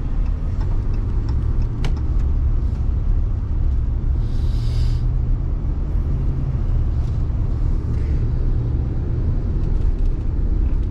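Pickup truck cab noise while driving on a road wet with ice rain: a steady low rumble of engine and tyres, with a brief hiss about four seconds in.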